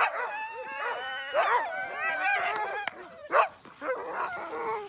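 A team of harnessed sled dogs yelping, yipping and howling all at once, the typical din of a team waiting to be let go, with one sharp loud bark about three and a half seconds in.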